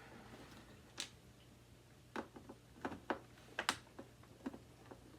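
Hard plastic clicks and knocks from handling and taking apart a Hoover WindTunnel 2 upright vacuum while hunting for a clog, one near a second in and a quick run of them in the second half.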